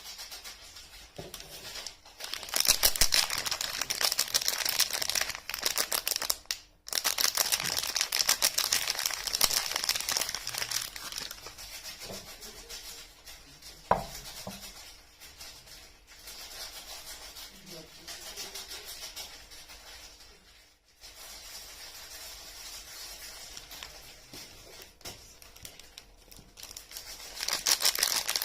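Paper and plastic soap wrapping being crinkled and torn open by hand, with dense crackly rustling. The crinkling is loud at first, breaks off briefly, then goes on more softly with one sharp click midway, and grows loud again near the end.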